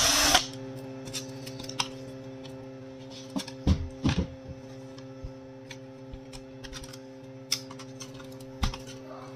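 A cordless electric screwdriver runs briefly, backing a screw out of a copier's control-panel frame, then stops. Scattered light clicks and a few sharper knocks follow as the plastic panel parts and small screws are handled, over a steady low hum.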